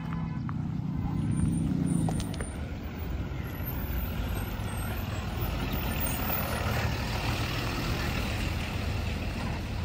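IC CE school bus heard from inside the cabin while driving: the diesel engine drones under load for the first couple of seconds, then gives way to a steady rush of road and wind noise as the bus rolls on.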